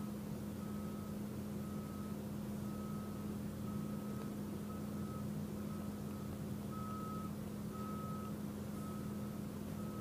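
A faint, short high beep repeating a little faster than once a second over a steady low hum.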